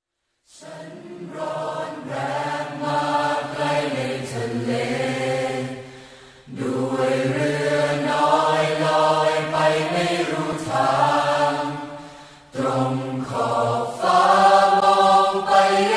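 Several voices singing slow, drawn-out, chant-like phrases in Thai, in three long phrases with short breaks about six and twelve seconds in, louder in the last phrase.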